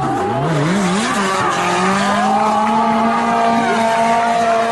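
Car engine revving hard while the car drifts sideways. The revs dip and bounce with quick throttle blips in the first second or so, then hold high and steady, over the hiss of sliding tyres.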